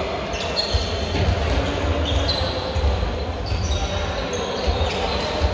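Handball bouncing on a wooden sports-hall floor during play, with sneakers squeaking in short high chirps and players calling out.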